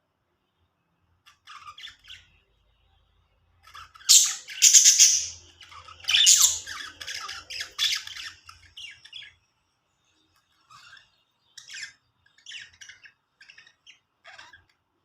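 Pet budgerigars chirping and chattering, with loud harsh squawks about four seconds in and again around six seconds, then softer scattered chirps near the end.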